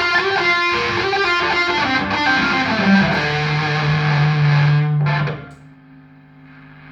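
Electric guitar with humbucker pickups played through a Trace Elliot Trident valve combo amp with 6L6 power valves, with a distorted tone and no pedals, as heard through a phone's microphone. Quick notes lead into a long held note. The playing stops about five seconds in, and only a faint steady tone is left.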